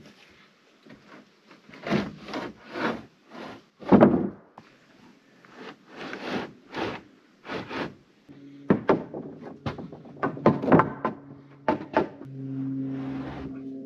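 Rough-sawn lumber boards being handled and set down on a wooden floor frame: irregular wooden knocks, thunks and scraping slides. Background music with held tones comes in about eight seconds in.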